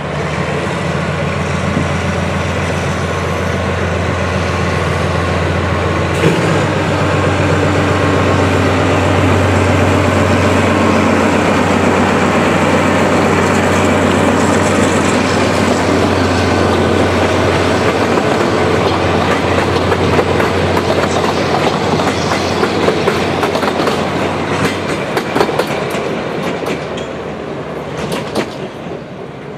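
A BDZ class 77 narrow-gauge diesel locomotive pulls away and passes close by, its engine running under load with a steady low drone that grows louder. From about two-thirds of the way in, the coaches' wheels clatter over the rail joints in many quick clicks, and the sound fades near the end.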